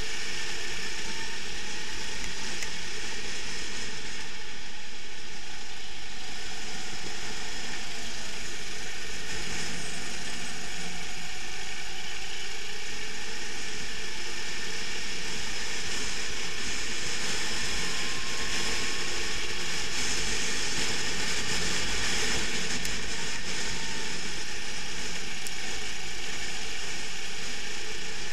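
Sodikart rental kart's engine running steadily at racing speed, with a constant mechanical rattle, heard through a camera mounted on the kart.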